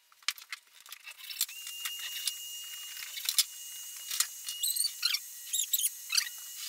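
Light wooden clacks and knocks as sawn elm boards and thin sticker strips are handled and stacked. Under them runs a steady high-pitched whine, with a few short squeaky chirps in the second half.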